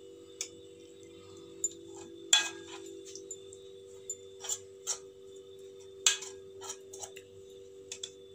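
A metal spoon clinking and scraping against an aluminium cake tin while spreading sauce over its bottom: a few irregular light clinks, the loudest about two seconds in, over a faint steady hum.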